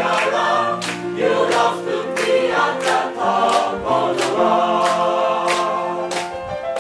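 High school chorus singing an up-tempo pop song in parts, over a sharp beat that keeps time about every three quarters of a second.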